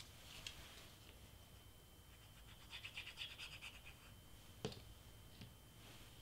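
Faint tabletop craft handling of cardstock and a squeeze bottle of liquid glue: a short stretch of rapid scratchy rasping about three seconds in as glue is squeezed out onto a small cardstock circle, then one sharp knock just before five seconds.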